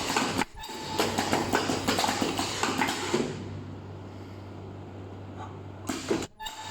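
Machine clattering and clicking for about three seconds, then a quieter steady hum with a faint hiss.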